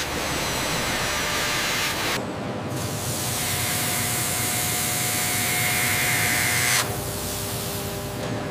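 Steady hissing industrial noise of metal machining and grinding, a milling cutter and an abrasive disc working metal parts. The noise changes abruptly about two seconds in and again near seven seconds, with faint steady tones running under it.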